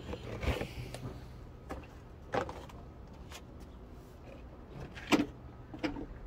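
Several short, scattered clicks and knocks of parts being handled during a filter change, over a low steady hum.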